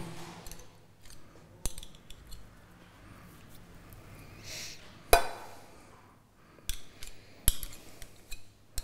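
Two metal spoons clinking against each other and on ceramic while salad is shaped into quenelles: a handful of separate sharp clinks, the loudest about five seconds in, with a soft scrape just before it.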